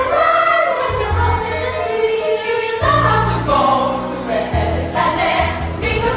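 A group of voices, female voices among them, singing a song together over instrumental accompaniment with low bass notes.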